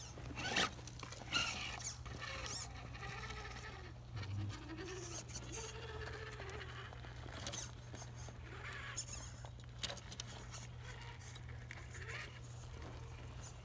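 Irregular clicks, knocks and scrapes of RC rock crawlers' tyres and chassis working over granite boulders, with no steady motor whine standing out.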